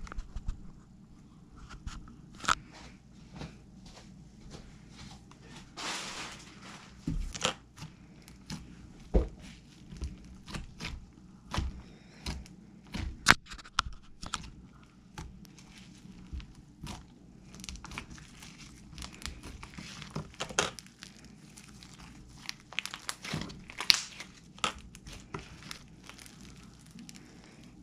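Handmade slime being squeezed and stretched by hand, giving off sharp pops and crackles at irregular intervals, with a few short squishy, tearing stretches.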